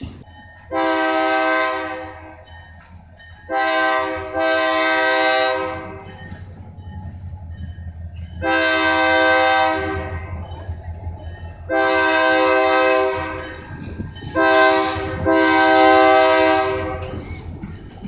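Diesel freight locomotive air horn sounding a chord of several tones in repeated blasts: long, then short, then long. Then, a few seconds later, two long, one short and one long, the grade-crossing warning signal. A low engine rumble runs underneath.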